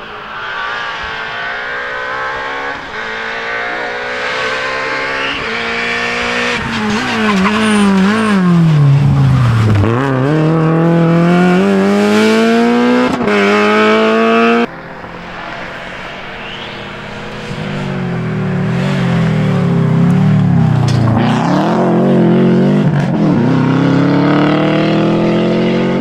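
Rally car engines at full racing load, revving up through the gears and dropping back as they brake and turn. The sound switches abruptly to a second car about halfway through; its engine pitch swings up and down quickly.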